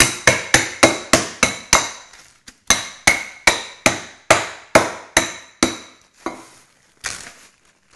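Ice cubes in a plastic bag under a paper towel being crushed by pounding with the bottom of a stainless steel mixing bowl. The result is a run of sharp knocks, about three a second, with a short pause about two seconds in and lighter knocks near the end.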